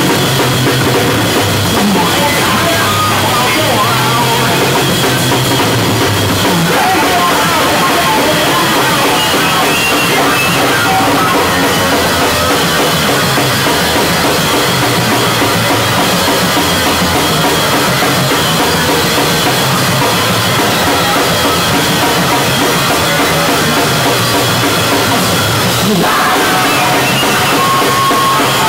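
Noise-rock duo playing live: fast, relentless drumming and heavily distorted bass guitar in a dense, loud, unbroken wall of sound, heard from right beside the drum kit.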